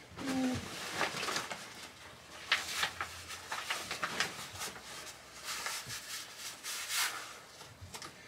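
Rustling and scraping of a heavy nylon canoe pack and its webbing straps as it is shouldered and the tumpline is pulled over the head, with scattered soft knocks and clicks of handling.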